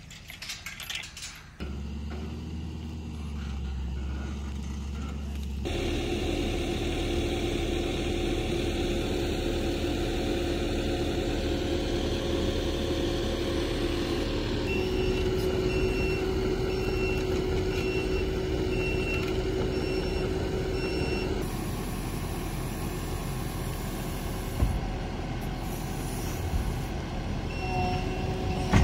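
A few metal clicks from a farm gate latch, then a Kubota SVL97 compact track loader's diesel engine running steadily as it carries a shed-sized chicken coop. Its backup alarm beeps in an even rhythm for several seconds in the middle and again near the end.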